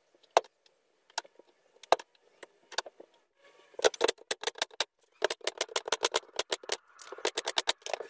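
Wooden slats knocking as they are set in place, then quick runs of sharp clicks and snaps from about four seconds in as a brad nailer fires nails through the oak slats into the footstool frame.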